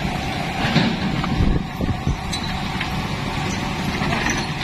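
Steady roadside traffic din of motorbike engines running, with a few dull thumps about one to two seconds in.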